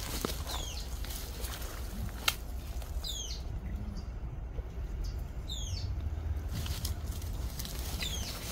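Footsteps rustling through dry grass and brush, with one sharp click about two seconds in. A bird gives short, high chirps that slide downward, four or five times.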